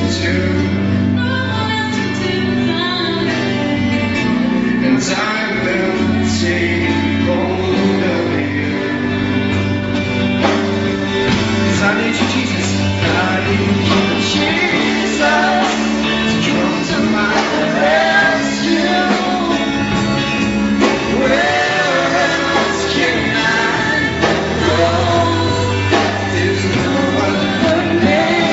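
Live gospel worship music: singers over sustained bass and instrumental chords, with a reverberant hall sound.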